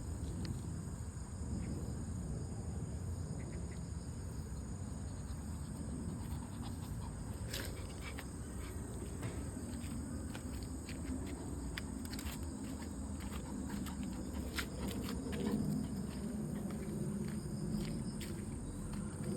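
Steady high-pitched insect chirring, with scattered faint clicks and a low background rumble.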